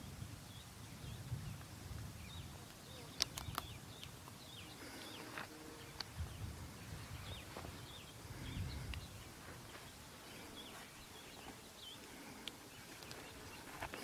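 Mountain nature ambience: faint, scattered bird chirps over wind rumbling on the microphone in gusts. There are two sharp clicks a little after three seconds in.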